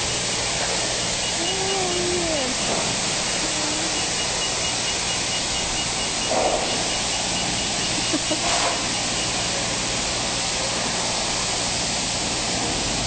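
High-pressure spray wand of a self-serve car wash bay spraying water onto a car, a steady hiss that does not change, with the bay's pump humming underneath.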